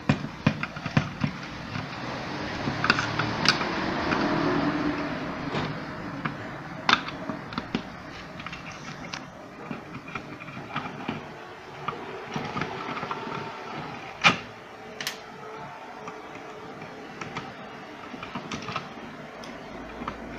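Screws being taken out of the plastic housing of a steam ironing station: scattered clicks and knocks of the screwdriver and plastic parts being handled, busiest a few seconds in.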